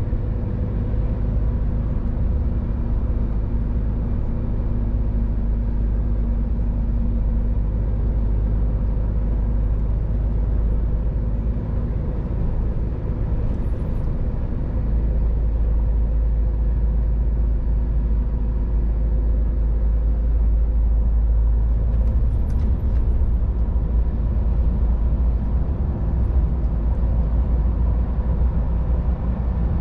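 Scania R500 truck's diesel engine running steadily while cruising, heard from inside the cab: a deep, even rumble with several steady hums and road and tyre noise underneath.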